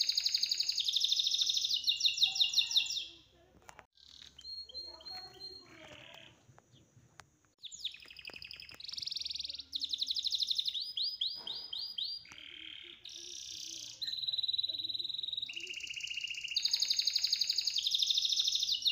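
Songbird singing: fast high trills and whistled chirps in bursts with short pauses. The same passage comes round again near the end, as in a looped birdsong recording.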